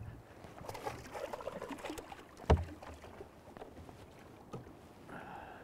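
A hooked coho salmon splashing at the surface beside the boat, with water sloshing. About two and a half seconds in comes a single sharp knock, the loudest sound.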